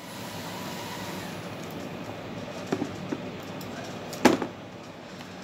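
Small DC hobby motor with a plastic fan running off a revived 18650 lithium-ion cell, a steady whine that stops about a second in, showing the cell delivers power again. Then a few handling clicks, the loudest near the end, as the cell is taken out of its plastic holder.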